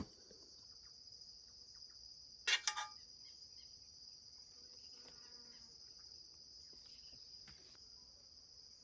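Steady, high-pitched insect chorus, crickets, with one brief loud pitched call about two and a half seconds in.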